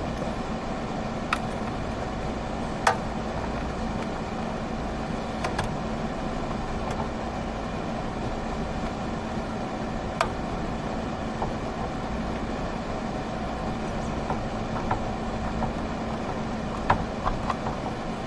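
Steady hum of a running RV rooftop air conditioner, with a dozen or so short sharp clicks and taps of handling, the loudest about three seconds in and a cluster near the end.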